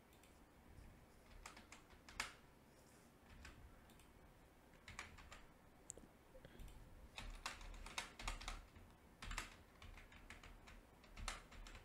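Faint typing on a computer keyboard: irregular clusters of keystrokes with short pauses between them.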